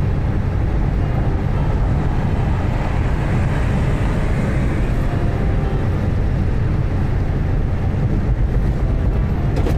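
Steady road and engine noise of a moving car, a dense low rumble with a short click near the end.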